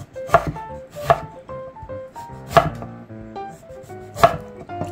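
A kitchen knife slicing through a lemon and knocking on an end-grain wooden cutting board: four sharp chops at uneven intervals.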